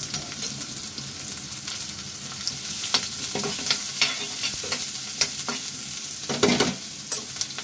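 Chopped onions, cumin, mustard seeds and curry leaves sizzling in hot mustard oil in a metal pan. They are stirred with a spatula that scrapes and clicks against the pan now and then, with the longest scrape near the end.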